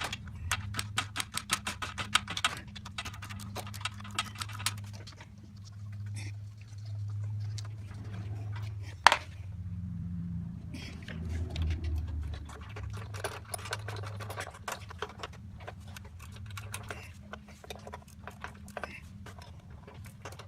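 Ratchet wrench clicking in quick runs as bolts come off the mower engine's fuel pump cover, with one sharp metal clank about nine seconds in, over a steady low hum.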